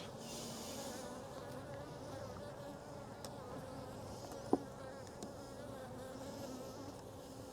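Honey bees buzzing around an opened hive: a steady hum of many wingbeats. A brief sharp tap about four and a half seconds in.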